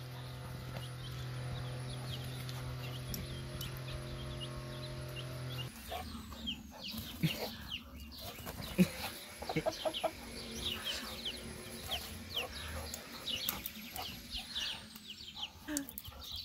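Hen clucking in short, irregular calls. A steady low hum runs under it for the first six seconds or so, then cuts off abruptly.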